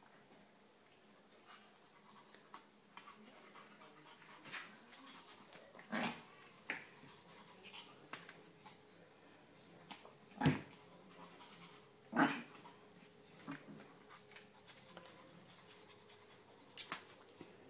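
A whippet puppy and a Maltese x Chihuahua play-fighting on a tile floor: dog panting and scuffling with scattered light clicks. A few sharper, louder sounds come about six, ten, twelve and seventeen seconds in.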